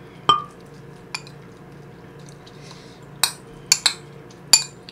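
Metal spoon clinking and scraping against a ceramic rice bowl while rice and tofu are mixed in it: about six separate clinks, the first with a short ringing note, and a quick run of them near the end.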